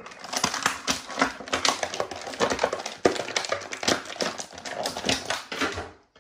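Rapid crinkling and clicking of plastic packaging being handled as an action figure is worked out of its plastic tray; it stops shortly before the end.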